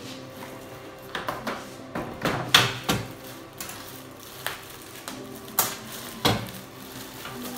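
Clear plastic wrap crinkling and crackling as it is pulled off a new analog bathroom scale, with a few sharp, louder crackles and knocks. Soft background music runs underneath.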